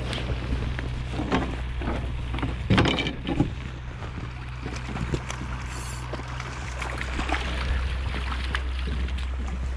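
A steady low motor hum, with scattered short knocks and clatters over it, the sharpest around the first few seconds.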